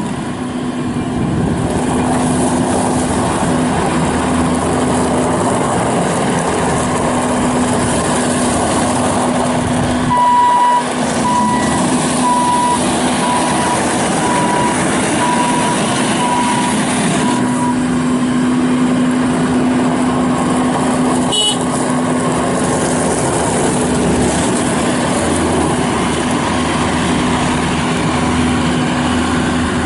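Bobcat S750 skid steer loader's diesel engine running steadily. About ten seconds in, a high beeping alarm, typical of the machine's back-up alarm, sounds roughly once a second for about seven seconds, and a brief click follows a few seconds later.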